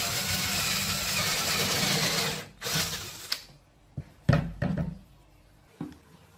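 Power drill with a 12 mm bit boring right through a wooden board, running steadily for about two and a half seconds, then a short second burst. A few sharp knocks follow about four seconds in, the loudest of them near the start of that cluster.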